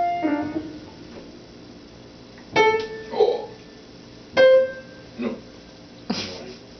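Upright piano: notes ringing out and fading at the start, then two separate keys or chords struck a couple of seconds apart, each left to ring and die away, as in a toddler's plinking at the keys.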